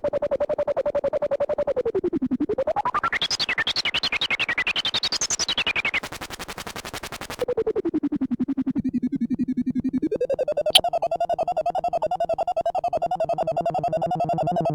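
Behringer Crave analog synthesizer playing a fast, steady stream of repeated notes while its resonant filter is swept down, up high and back down. Near the end a wavering pitched tone joins in, and there is one sharp click.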